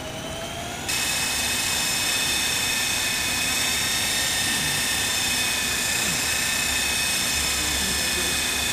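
Small unmanned helicopter's engine and rotor running steadily with a high, even whine, louder from about a second in.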